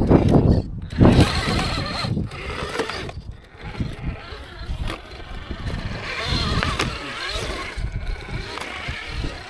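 Electric RC rock crawler drivetrain whining in uneven bursts as the crawler is driven over rocks, with the loudest surges in the first two seconds.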